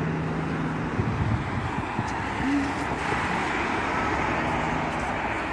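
Steady road traffic noise, a continuous rumble and hiss of passing vehicles, from the road beside the bridge pavement.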